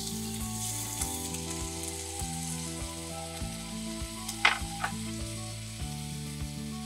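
Thinly sliced beef sizzling as it fries in a small camp pot on a canister gas stove, stirred with chopsticks. Two sharp knocks of the chopsticks against the pot come about four and a half seconds in.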